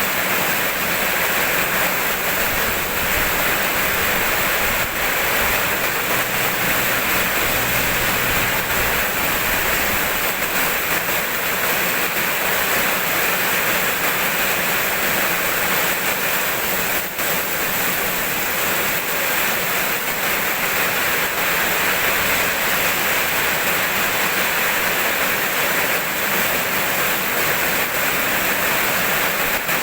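Heavy rain falling in a steady, even hiss. A faint low rumble sits under it from about five to nine seconds in.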